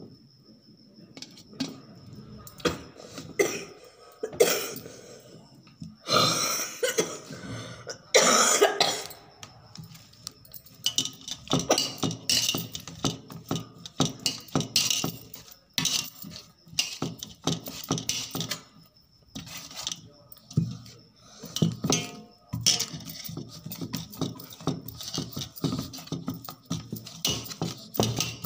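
Boiled potatoes being mashed by hand on a steel plate: many quick taps and clinks of fingers and glass bangles against the metal, busier in the second half. Two louder rough noises come around six and eight seconds in.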